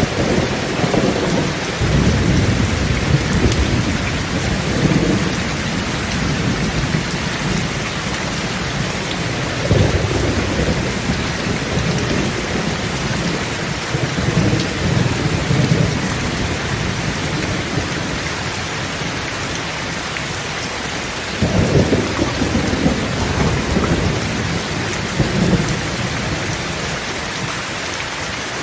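Thunderstorm: steady heavy rain hissing throughout, with rolling thunder rumbles that swell and fade several times, the strongest a little past two-thirds of the way through.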